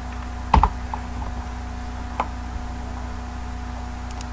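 A few sharp clicks from computer keys and a mouse button: a loud double click about half a second in, a single one near two seconds, and faint ticks near the end, over a steady low hum.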